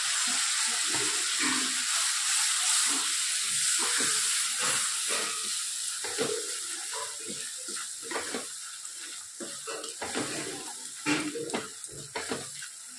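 Spice masala tempering in hot oil in a non-stick kadai, sizzling loudly just after a little water goes in, the sizzle dying down steadily. A spatula stirs and scrapes the pan, the scrapes standing out more near the end as the sizzle fades.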